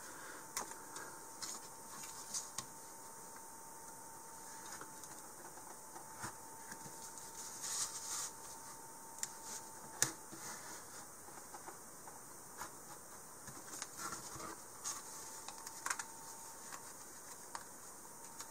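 A hobby knife blade cutting through the small tabs that hold die-cut cardboard rocket fins in their sheet. Faint scattered clicks and scratches come as the blade pops through the tabs and the sheet is handled, with a faint steady tone underneath.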